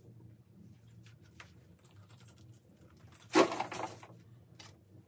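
Christmas tree ornaments being handled and dropped into a storage box: faint small clicks, then one brief rustling clatter about three and a half seconds in.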